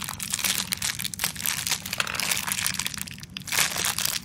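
Thin clear plastic parts bag crinkling and crackling in the hands as it is handled, in a quick, irregular run of rustles.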